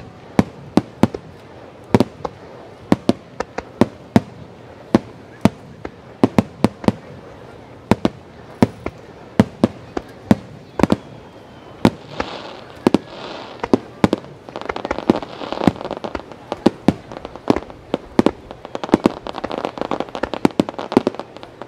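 Starmine fireworks barrage: shells bursting in quick succession, sharp booms about one to two a second. In the second half a dense rushing noise fills the gaps between the booms.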